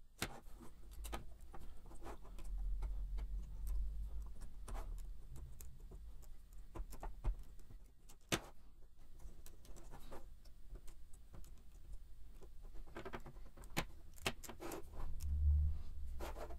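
Faint scattered clicks and taps of fingers pressing modelling clay along the top of a Lego-brick mould box, the plastic bricks knocking lightly on a wooden tabletop, with a soft low thump near the end.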